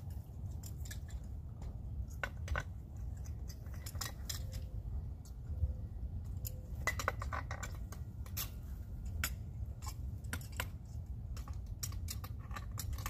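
Tongue-and-groove pliers clicking and scraping against a metal conduit fitting as its nut is tightened, in many separate sharp metallic clicks.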